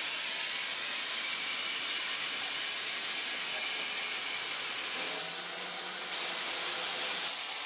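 Steady hiss of steam from a 2 ft gauge narrow-gauge steam locomotive, with no exhaust beats; the hiss gets louder about six seconds in.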